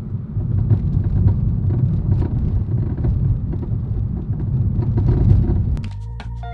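Front suspension of a MK6 VW GTI driving over bumps: repeated irregular clunks and rattles over a steady road rumble. The clunk comes from a bad passenger-side front stabilizer bar link.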